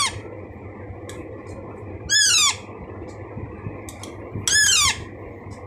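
A baby Alexandrine parakeet calling, with a short, loud call about every two and a half seconds, each one falling in pitch. These are the food-begging calls of a hand-fed chick.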